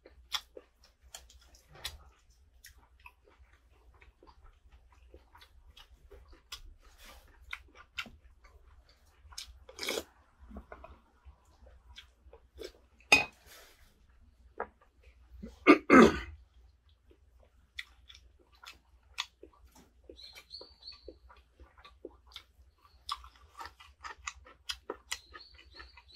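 Close-up eating sounds: chewing, with chopsticks clicking against a cast-iron pan and dishes. Two louder, sharper noises come a little past the middle.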